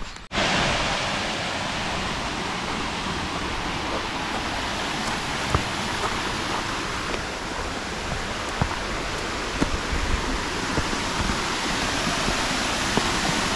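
Steady rushing of creek water tumbling over sandstone ledges at the top of a waterfall, cutting in abruptly just after the start, with a few faint clicks.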